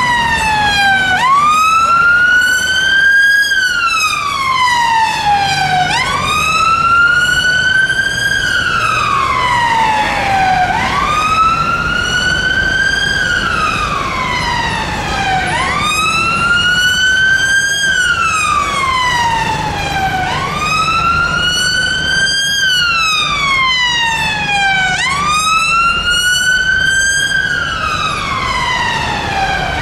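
Wail siren of a London Ambulance Service Volvo XC70 joint response car. Each cycle rises in pitch over about two seconds and then falls away more slowly, repeating about every five seconds, six times in all, over low traffic noise.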